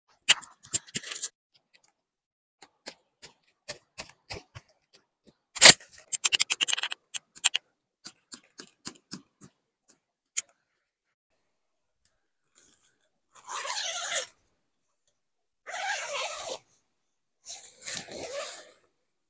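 A rock hammering metal tent stakes into the ground: a run of sharp taps and knocks for about ten seconds, the hardest blow about five and a half seconds in. Near the end, three rustling bursts of about a second each as tent fabric and bedding are handled.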